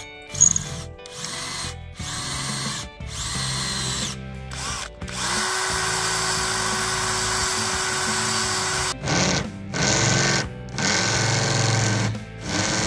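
Handheld cordless drill boring holes in a small Picatinny rail, then countersinking them. It starts and stops in short runs of about a second, with one steady run of about four seconds in the middle.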